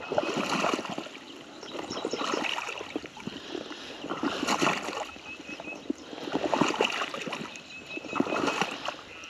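Footsteps wading through near knee-deep floodwater in tall grass: a slosh and swish with each slow stride, about one every two seconds.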